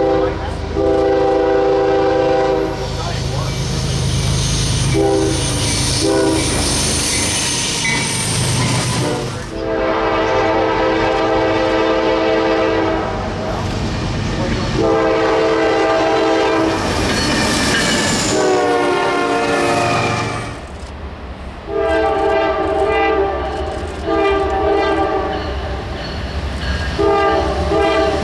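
Locomotive air horn sounding a chord in a series of blasts, some long and some short, one of them falling in pitch about two-thirds through. Wheels clatter on the rails and the train rumbles underneath.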